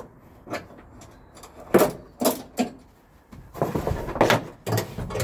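Handling noise from a bungee cord being stretched across plastic knapsack sprayers and hooked in place. A few sharp knocks and clacks come first, then a longer spell of rustling and rattling about two-thirds of the way through as the tanks and lances bump against their wooden rack.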